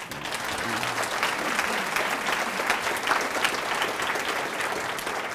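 Audience applauding: many hands clapping, starting suddenly and then holding steady.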